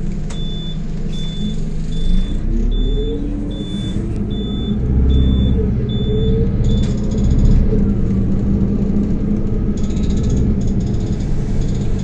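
Anadolu Isuzu Citibus engine heard from inside the bus as it speeds up: its pitch rises from about two seconds in, dips once around the middle as the gearbox shifts up, then climbs and settles into a steady run. For the first seven seconds a short high electronic beep repeats about every 0.6 s.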